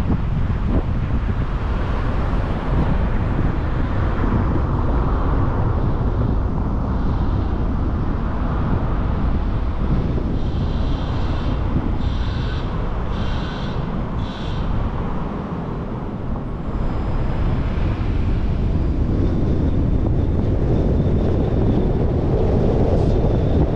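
Car driving through city streets: steady road and wind noise on the microphone, easing off briefly around the middle, with a few short higher-pitched sounds partway through.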